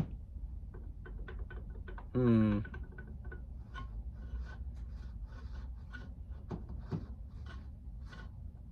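Small clicks and light knocks from the parts of a garage heater's fan motor as it is test-fitted and handled, with one short, loud pitched squeal about two seconds in. Afterwards the owner traces the trouble to the shaft bushing.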